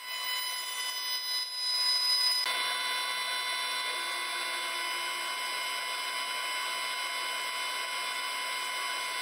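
CNC router spindle running with a steady high whine as its ball-nose bit takes a light finishing pass along a Douglas fir leg turned on the rotary axis. The tone shifts slightly about two and a half seconds in.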